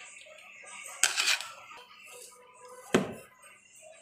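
Drained, part-cooked basmati rice slid out of a steel bowl into a metal pot, with a short rushing swish about a second in. A single sharp metal knock comes near three seconds in.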